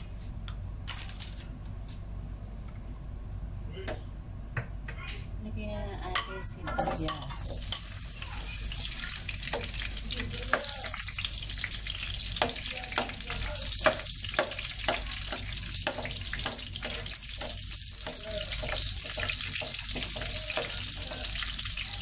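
Red onion wedges sizzling in hot oil in a non-stick frying pan; the sizzle starts about seven seconds in. From about ten seconds a spatula scrapes and clicks against the pan as the onions are stirred.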